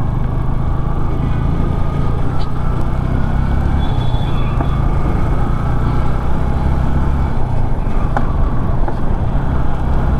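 Motorcycle riding along the road, its engine running at a steady pace with a constant low rumble and road noise.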